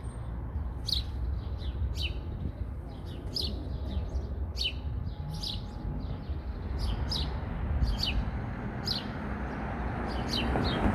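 Small birds chirping repeatedly, short high chirps coming about once or twice a second, over a steady low rumble. A rushing noise swells near the end.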